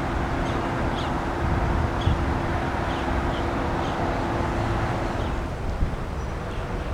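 Jet airliner engines running: a steady rumble with a low hum that fades out about five seconds in.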